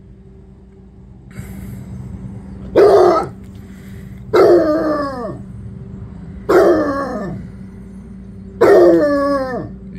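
Basset hound baying four times, about two seconds apart, each a loud bark-howl that slides down in pitch.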